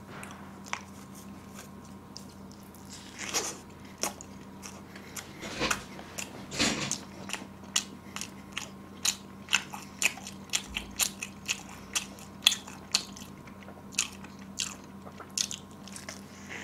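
A person biting into and chewing a slice of pizza close to the microphone, with crunches of the crust. A few louder bites come in the first seven seconds, then a quicker run of short wet chewing clicks, one or two a second.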